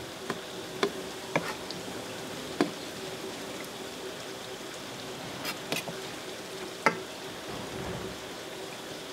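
Steady hiss like running water under a faint steady hum, broken by about seven sharp knocks and clicks at irregular moments, the loudest near the end.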